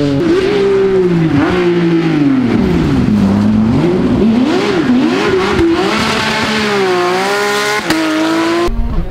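Porsche 911 rally car's flat-six engine revving hard through a corner. The note drops as it brakes and changes down, swings up and down under throttle, then climbs in steps through upshifts as it accelerates away. It cuts off abruptly near the end.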